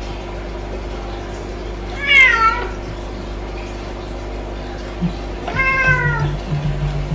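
A kitten meowing twice, about three seconds apart; each short high call falls in pitch.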